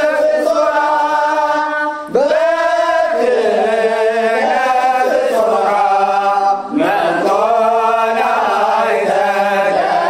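Ethiopian Orthodox mezmur (hymn to St. Gabriel) sung in a chant style over a steady held low note. The phrases break briefly for breath about two seconds in and again near seven seconds.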